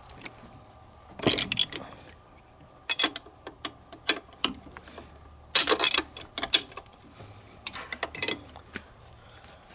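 Wrench working the spark plugs out of an outboard motor's cylinder head: irregular short bursts of metallic clicking and scraping, about half a dozen times.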